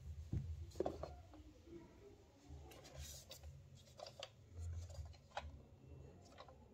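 Faint scattered clicks and rubbing of a plastic toy cow being handled, with the sharpest knocks about a second in.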